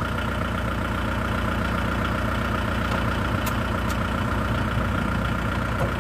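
Tractor diesel engine running steadily at low revs, with a steady high whine over it that sets in at the start.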